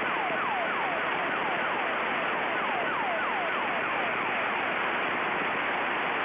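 A practice emergency locator transmitter's falling sweep tone, picked up on 121.775 over the aircraft radio, repeating about three to four times a second over steady radio hiss. It is a strong signal, a sign that the aircraft is close to the beacon.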